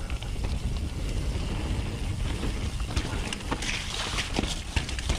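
Nukeproof Mega 290 downhill mountain bike descending a rough trail: wind buffeting the microphone over a steady low rumble of tyres on dirt and rock, with scattered clicks and knocks from chain and suspension, and a louder spell of tyre hiss on loose ground about three seconds in.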